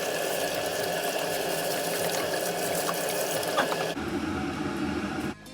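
Kitchen tap running as a knife is rinsed under it. The sound of the water changes about four seconds in and stops suddenly just before the end.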